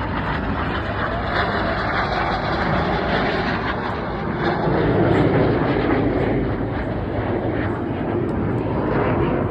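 Jet noise from the Red Arrows synchro pair, two BAE Hawk T1 jets, passing fast and low over the crowd: a steady rush that swells and deepens about five seconds in.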